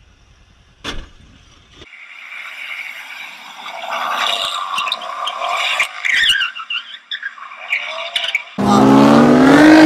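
A sports car's tyres squealing and scrubbing as it slides sideways on asphalt, with a falling squeal about six seconds in. A much louder sound bursts in near the end.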